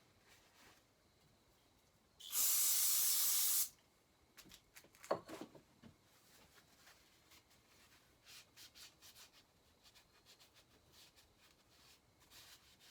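Aerosol can of brake cleaner sprayed in one steady burst of about a second and a half, cleaning chainsaw parts. Afterwards come scattered light clicks and handling noises, with one sharper knock about five seconds in.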